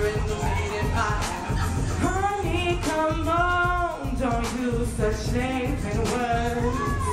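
Live group vocals singing a melody with long held notes, over a DJ-played beat with a steady bass pulse.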